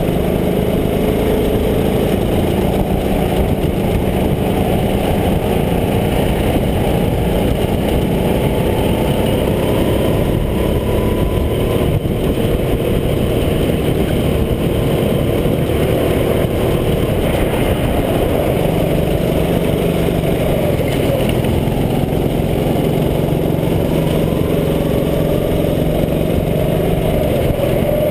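Go-kart engine running at racing speed, heard from the kart itself, its revs rising and falling through the corners over a steady rumble.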